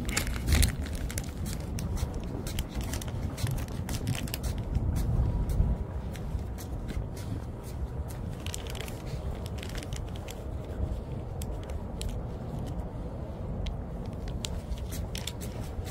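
A dog chewing a small treat in the first second, then footsteps and scuffs on a ship's steel deck as scattered short clicks over a steady low rumble.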